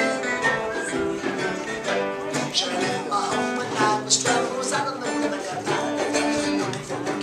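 Live acoustic band playing: strummed acoustic guitar with other plucked strings in a continuous tune.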